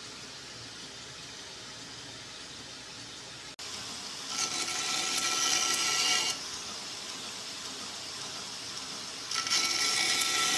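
A 2x72 belt grinder running at about 30% power on its 12-inch contact wheel. A G10 knife handle scale is pressed against the belt twice, each pass a harsh grinding sound of about two seconds: one a little before halfway, one near the end.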